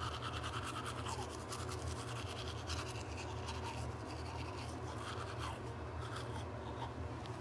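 Manual toothbrush scrubbing teeth: quick, steady back-and-forth brushing strokes.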